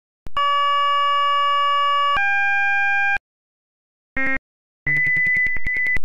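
Synthesized electronic tones from a Mandelbrot set sonification web app, playing the orbit of a clicked point as sound. A steady buzzy tone holds for about two seconds, then steps up in pitch and holds for about a second. After a short gap there is a brief blip, then another higher tone near the end. Each tone starts and stops with a click.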